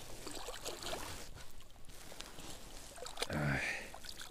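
Scattered small splashes and sloshing in shallow river water as perch on a wire stringer flap at the water's edge. A brief voice sound comes about three seconds in.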